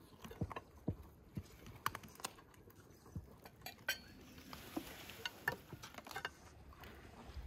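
Irregular light clinks and taps of plates, glasses and cutlery on a laden meal table.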